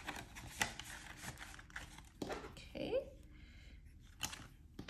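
Paper banknotes rustling as they are slid into a plastic cash envelope in a ring binder, with a few sharp taps and clicks of handling.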